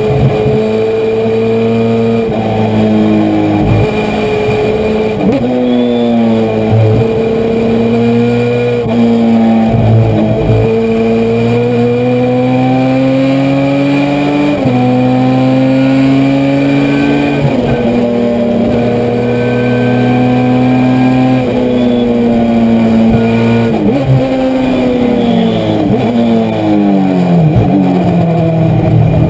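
Honda CRX race car's four-cylinder engine at full throttle, heard from inside the cockpit, its pitch climbing through each gear and stepping down at several upshifts. Near the end the revs fall steadily as the car slows for a corner, then start climbing again.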